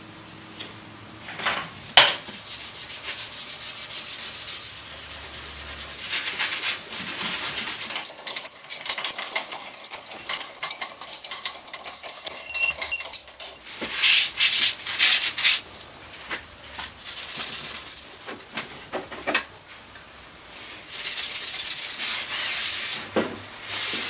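Irregular rubbing and scraping, with a steady high-pitched whine for about five seconds in the middle.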